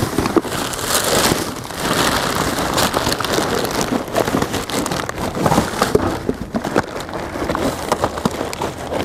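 Rummaging through a dumpster: trash bags and packaging rustling and crinkling, with many small knocks and clicks.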